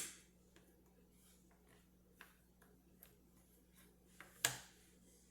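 Cardboard jigsaw puzzle pieces being handled and pressed down on a table: a sharp click at the start, faint scattered ticks, and another sharp click about four and a half seconds in.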